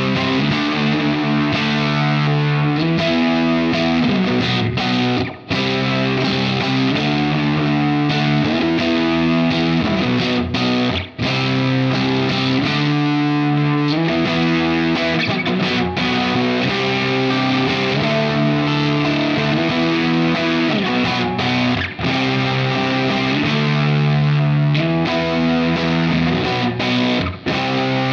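James Tyler Studio Elite HD electric guitar played through a heavily overdriven amp: a distorted riff of held power chords that changes every second or two, with a few brief stops between phrases.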